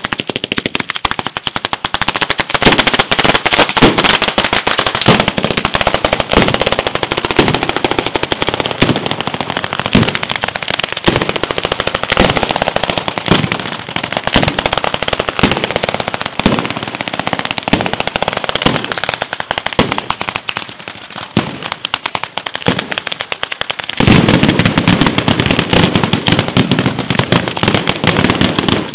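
Ground fireworks: firecrackers going off in a dense, rapid crackle, with heavier bangs about once a second. About 24 seconds in the barrage grows louder and fuller.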